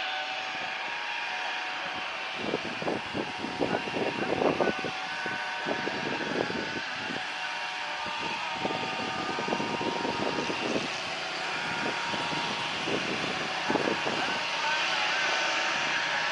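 Jet airliner engines running at a distance, a steady hiss and whine that grows a little stronger toward the end. Nearby voices come and go in short bursts through the middle.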